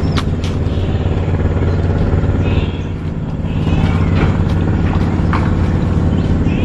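An engine running steadily at an even, low pitch, with no change in speed.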